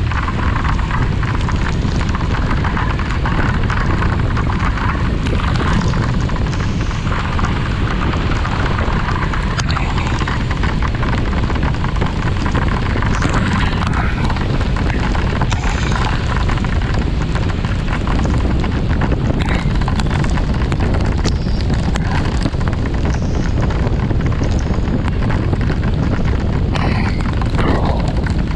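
Loud, steady wind rumble buffeting a GoPro action camera's microphone while riding a scooter, with the scooter and road noise underneath.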